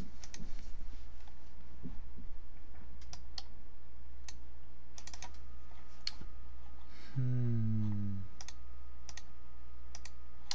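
Scattered keystrokes and clicks on a computer keyboard, over a steady low hum. About seven seconds in comes a short, low voice murmur that falls in pitch.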